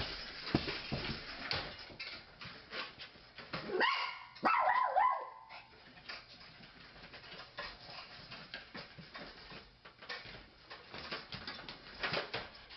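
A dog calling briefly about four seconds in, a few short high cries falling in pitch, among many sharp clicks and knocks.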